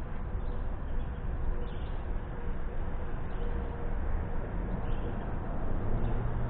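Steady outdoor background rumble and hiss by a creek, with a few faint, brief bird chirps.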